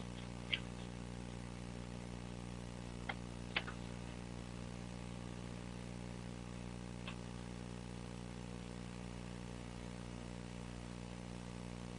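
Faint steady electrical hum with hiss, in several even low tones, from an old analogue videotape soundtrack, with a few soft clicks: one about half a second in, two close together around three seconds in, and one about seven seconds in.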